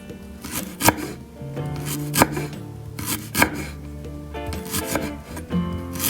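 Sharp knocks at irregular intervals of about a second, over background music with held notes.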